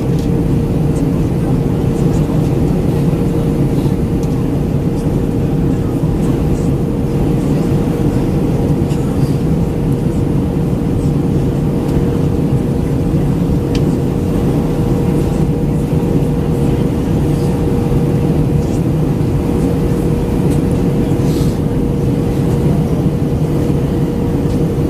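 Steady cabin noise inside an Airbus A319-112 airliner in descent: a constant airflow roar and CFM56 engine noise with a steady hum.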